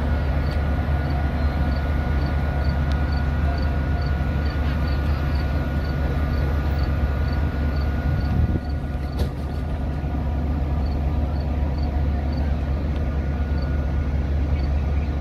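Steady low hum of a Metra commuter train standing at the platform, its locomotives and bilevel coaches idling. A faint regular tick about twice a second runs over the hum.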